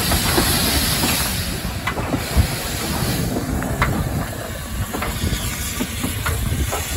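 Steam tank locomotive hissing steam up close, over a low rumble, with a few sharp clicks. The hiss is strongest for the first couple of seconds and then eases.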